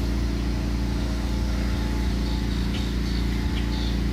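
Pressure washer's engine running steadily at a constant speed.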